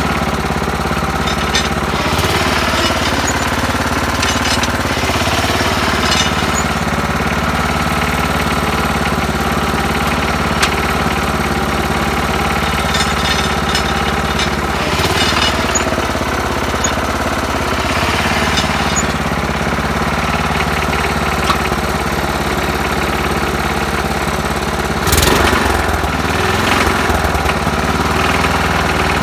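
Tecumseh HH120 single-cylinder engine of a 1968 Sears Suburban 12 garden tractor running steadily with a rapid, even knocking beat, briefly louder about 25 seconds in.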